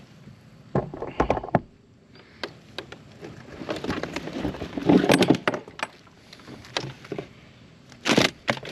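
Handling noises in a kayak: a few sharp knocks about a second in, rustling and scraping in the middle, and a quick run of clicks near the end as a rubber-mesh fish basket is pulled up and opened.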